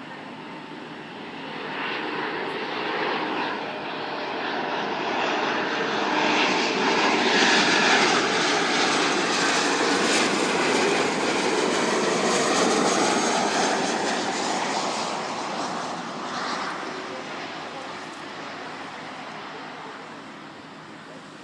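Airplane passing low overhead as it comes in to land. Its engine noise swells for several seconds, peaks around the middle, then fades away, the pitch sweeping as it goes by.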